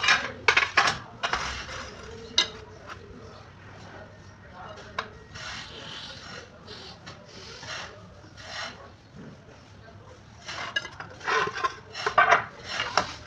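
Ceramic tiles and a tile strip scraping and rubbing against each other and the concrete floor as they are slid into place and marked. The scratchy strokes come in a cluster at the start, a few scattered ones through the middle, and another cluster near the end.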